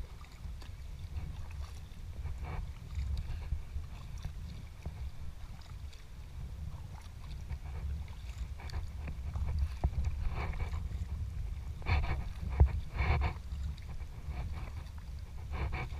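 Sea kayak being paddled: paddle strokes splash and water sloshes against the hull over a steady low rumble. The splashes come more often and louder about two-thirds of the way in.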